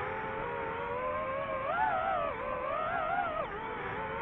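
DJI FPV drone's motors and propellers whining, the pitch rising and dipping repeatedly with throttle changes.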